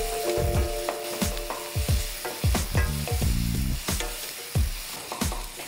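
Chopped onions sizzling in hot oil in a steel pan, being sautéed until they turn translucent, with a wooden spatula scraping and knocking against the pan as they are stirred.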